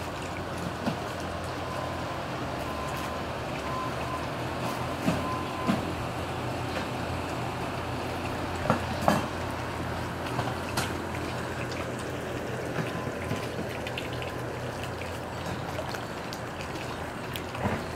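Steady outdoor background noise with a low hum and a few small clicks, and a faint on-and-off beeping tone during the first six seconds.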